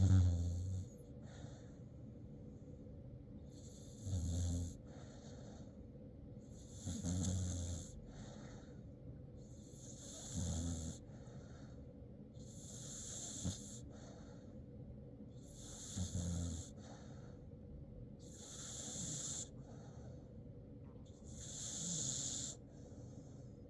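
A sleeping pet snoring, about one snore every three seconds. The first few snores carry a low rumble under a hissing breath; the later ones are mostly the soft hiss.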